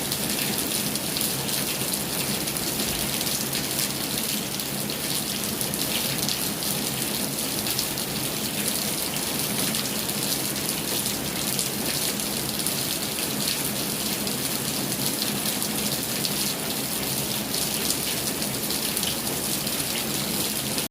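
Heavy rain falling steadily, a dense even hiss of drops with fine pattering ticks throughout.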